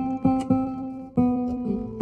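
Music: guitar chords struck several times in a loose rhythm, each ringing and fading before the next.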